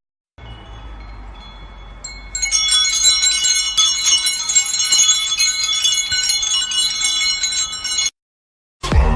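Chimes tinkling with many overlapping bright ringing tones. They start faintly, grow louder about two seconds in, and cut off suddenly about eight seconds in.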